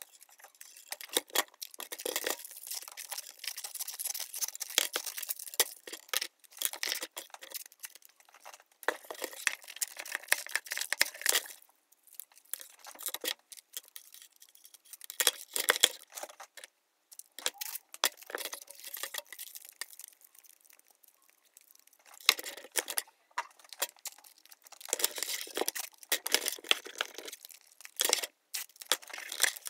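Paper, tape and plastic crinkling and rustling as a homemade taped stick and its attachments are handled, with small clicks and clinks of hard parts. The sound comes in irregular spells with short pauses between.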